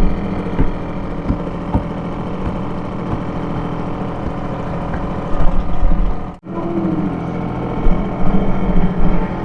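British Seagull single-cylinder two-stroke outboard motor running steadily, with a few low thumps over it. The sound breaks off for an instant about six seconds in.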